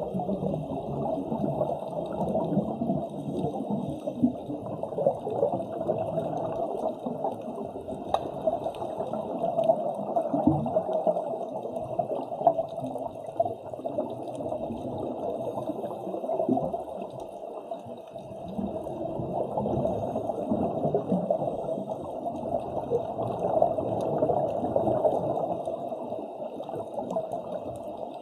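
Muffled underwater bubbling and gurgling water, heard through the water with a constant crackle of small bubbles; it swells and eases slowly over several seconds.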